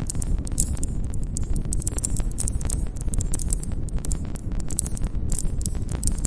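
Wood campfire burning, with a steady low rumble of flames and many irregular sharp crackles and pops from the burning wood. A faint high chirring of crickets runs underneath.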